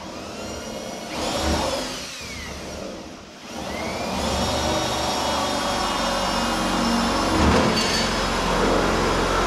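Electric drill boring pilot holes through the car's sheet-metal hood. The motor whine starts about a second in, drops in pitch and eases off, then rises again and holds a steady high whine to the end.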